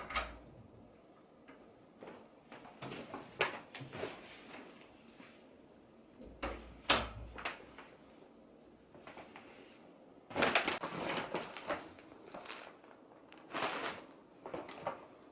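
Household handling noises: scattered clicks and knocks with bursts of rustling or scraping, like things being opened, moved and set down. The sharpest click comes about seven seconds in, and a longer rustle about ten seconds in.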